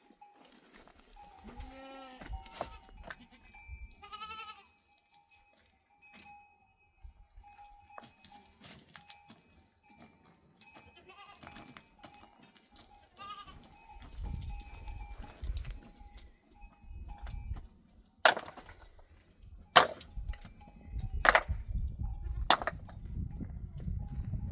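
Goats bleating several times in the first half, with a faint bell ringing. In the second half come four sharp knocks about a second and a half apart, the loudest sounds here, over a low rumbling.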